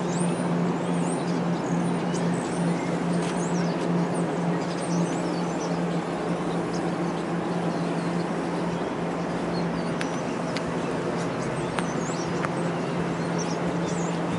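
New Jersey Transit train of double-deck Multilevel coaches rolling slowly past on the track beside the platform: a steady low hum over the rumble of the wheels, with scattered short high squeaks.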